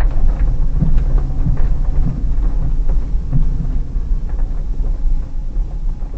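Hyundai Terracan's 3.5-litre V6 running steadily under light load, heard from inside the cabin as a loud low drone. Frequent short knocks and rattles from the suspension and body as the SUV rolls over a rough, snow-covered dirt track.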